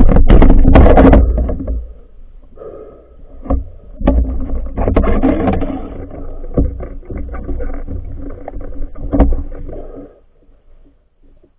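Muffled underwater noise picked up by a phone held underwater: a low rumble of water movement with scattered knocks and clicks from handling the camera and spear. It is loudest at the start and again in the middle, and dies away near the end.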